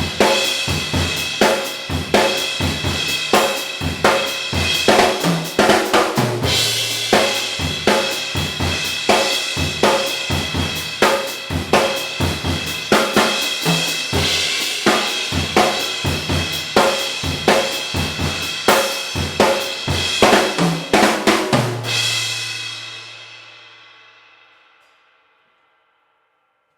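Drum kit played with the 20-inch Zildjian Oriental Crash of Doom cymbal, a trashy china-type effects crash, in rapid repeated hits. Near the end a final crash is struck and left to ring, fading out to silence over a few seconds.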